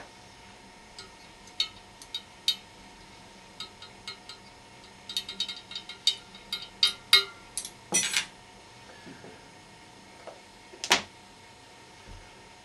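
Metal teaspoon clicking and tapping against a knife, the powder tub and the glass neck of a demijohn while Campden powder is measured and tipped into the wine. The clicks are scattered, with a quick run of them about five to seven seconds in and single louder clinks near eight and eleven seconds.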